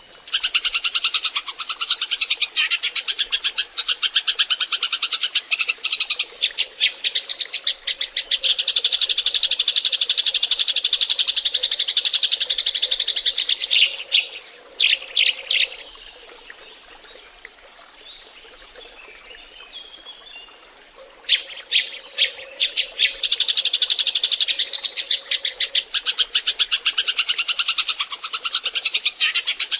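A flock of Eurasian tree sparrows chirping and chattering in rapid, dense runs of calls, the kind of lure recording played to draw wild sparrows in. It drops to a few fainter calls for several seconds in the middle, then the dense chattering resumes.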